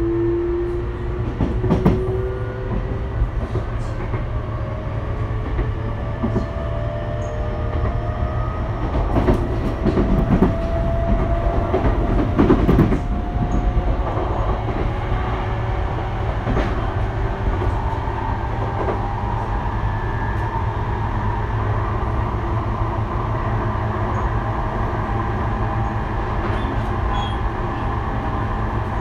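Interior running sound of a Sotetsu 12000 series electric train under way: steady low rumble with a motor whine that glides slowly upward through the first half. A cluster of knocks from the wheels over rail joints comes about ten seconds in.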